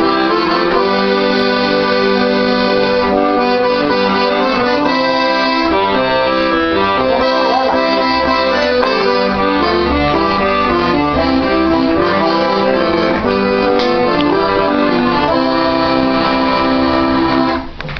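Accordion music, with sustained chords and a melody over them, that breaks off shortly before the end.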